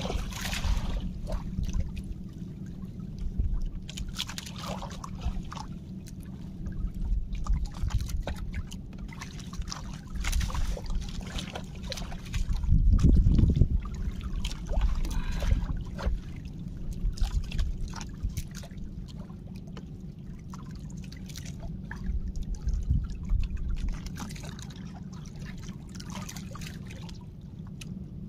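Seawater splashing and trickling around a small fishing boat, with scattered small splashes over a steady low rumble.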